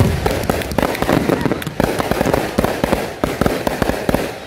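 Aerial fireworks shells bursting in a dense, rapid barrage of overlapping bangs and crackling.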